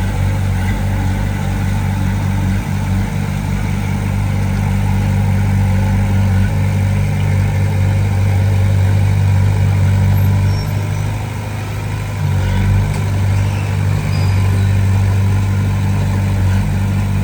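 Diesel engine of heavy earthmoving equipment running steadily under load, with a brief drop in level about eleven seconds in before it picks up again.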